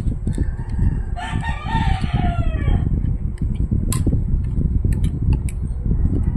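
A rooster crows once about a second in, a single call lasting about a second and a half that drops in pitch at the end. Under it runs a steady low rumble, and a few sharp clicks come in the second half.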